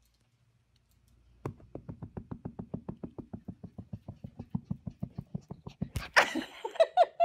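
A small dog's claws clicking fast and evenly on a hardwood floor, about ten clicks a second, as the puppy scampers toward the camera. About six seconds in there is a loud knock, followed by brief voice-like sounds.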